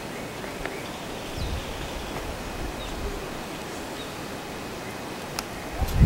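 Steady outdoor hiss of wind with faint, scattered short bird chirps. There is a low bump about a second and a half in, and a louder knock or buffet on the microphone near the end.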